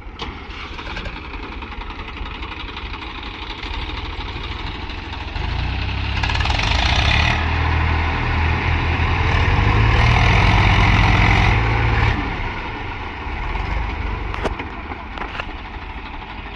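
Diesel tractor engine running, revving up from about five seconds in, loudest around ten to twelve seconds, then easing back to a steady run.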